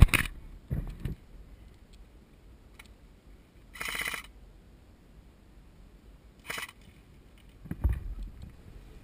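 Two short bursts of airsoft gunfire: rapid strings of clicks, the first about four seconds in and a shorter one a little later. Low thumps and rustling follow near the end.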